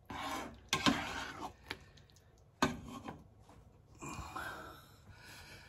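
A spoon stirring thick apple pie filling in a nonstick pot, scraping the pot, with sharp knocks against the pot about a second in and again near the middle.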